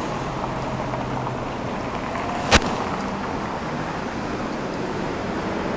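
Steady outdoor background noise of a car lot beside a street, with distant traffic. There is one sharp click about two and a half seconds in.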